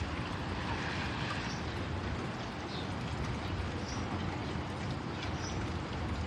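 Steady rushing noise of rain, with a few faint, short, high bird chirps scattered through it.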